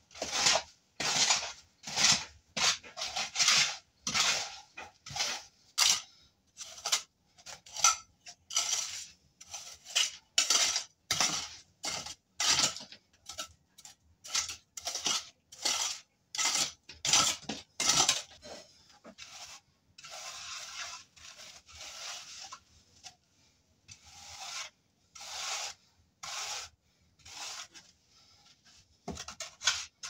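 A hand tool scraping and smoothing fresh cement in repeated short strokes, about two a second, with a few longer, slower strokes past the midpoint.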